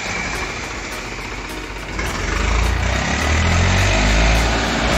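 Eicher 480 tractor's diesel engine working hard as the tractor strains to pull out of soft, muddy ground where it is stuck with a loaded trolley. It grows louder and deeper about two seconds in as more power is given.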